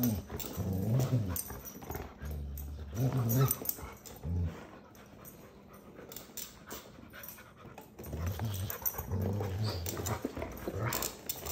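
Golden retriever and springer spaniel puppies growling as they wrestle over a toy, low growls coming in stretches of a second or two with a quieter gap in the middle. Scattered clicks and scuffs run through it.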